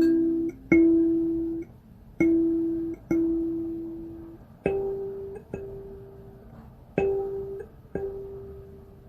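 A plucked string instrument playing a slow melody of single notes, about one a second, each plucked sharply and left to ring and fade, the line stepping up in pitch partway through.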